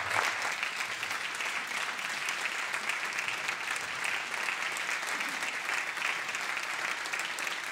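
Steady applause from a chamber full of state senators giving a standing ovation, many hands clapping at once.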